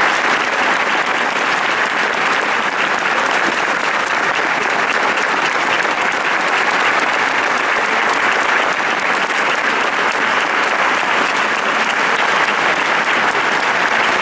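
Audience applauding: dense, steady clapping that holds at an even level without a break.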